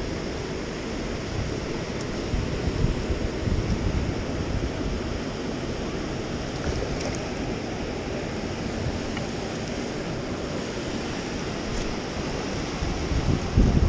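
Ocean surf washing in along a rocky shore, with wind buffeting the microphone, gusting louder near the end.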